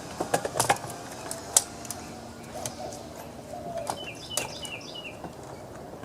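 Birds calling: a low cooing call and, about four seconds in, a quick series of short descending chirps. Several sharp clicks in the first two seconds, the loudest about one and a half seconds in.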